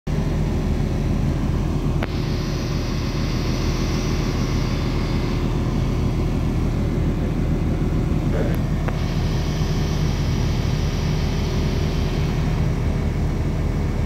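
Engine of heavy construction machinery running steadily at a low drone, with a hissing sound over it for a few seconds at a time, twice.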